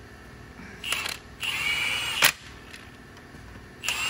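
Impact wrench running in bursts as it drives home the flexplate-to-crankshaft bolts on an LS engine: a short blip about a second in, a run of just under a second with a steady high whine that stops abruptly, then another run starting near the end.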